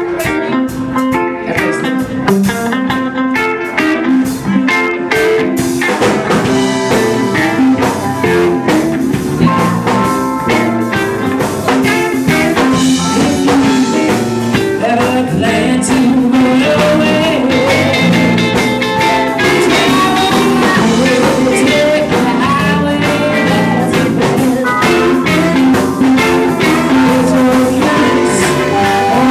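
Live blues-rock band playing, with electric guitars and a drum kit, and a woman singing lead into a microphone.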